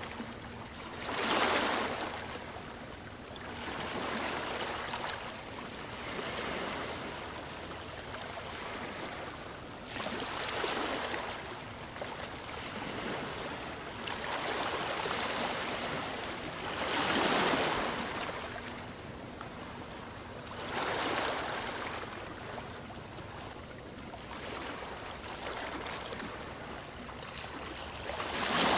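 Ocean waves washing onto a shore: a steady hiss of surf that swells every few seconds as each wave breaks, the loudest ones about a second and a half in, around the middle and at the very end.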